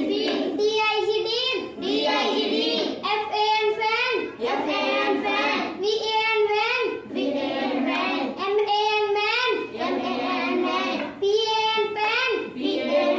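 A child's voice chanting in a sing-song rhythm, spelling out short English words letter by letter as a phonics drill.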